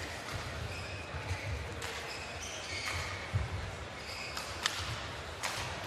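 Indoor badminton arena between points: a steady crowd murmur, with several short squeaks of court shoes on the playing mat and about four sharp knocks spread through.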